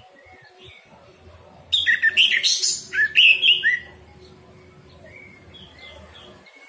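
Orange-headed thrush singing one loud, rapid, varied phrase lasting about two seconds, starting a little under two seconds in. Faint chirps of other birds are heard before and after it.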